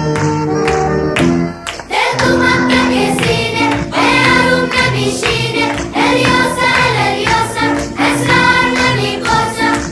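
Background music: instrumental notes, then a group of voices singing over it from about two seconds in.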